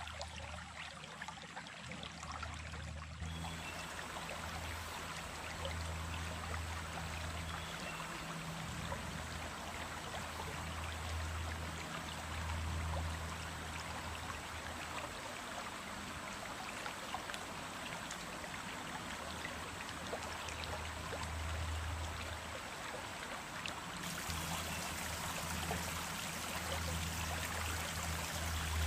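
Running water in a small stream, flowing and trickling steadily, with a low rumble that swells and fades underneath.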